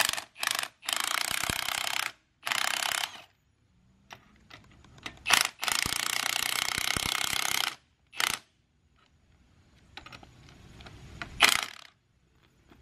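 Milwaukee cordless impact wrench hammering on the top nut of a front strut assembly, its coil spring held in spring compressors. It runs in several bursts, the longest about two seconds, with short blips between.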